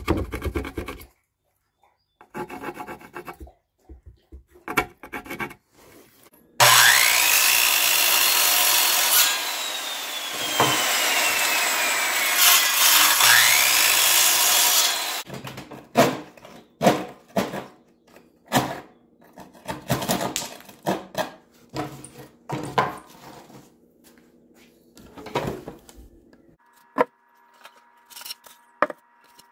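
A power saw cutting a notch into a wooden board for about eight seconds, its whine sliding down and back up as it cuts. Before and after it, short irregular scraping strokes of work on the wood.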